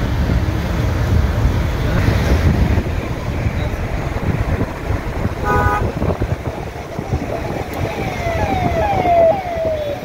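Road traffic running steadily, with a short car-horn toot about halfway through. In the last few seconds a high tone falls over and over, about two times a second.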